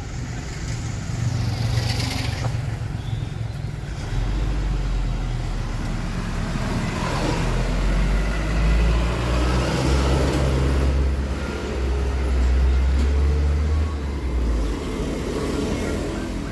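Road traffic passing, with a heavy vehicle's low engine drone loud from about four seconds in until it fades near the end.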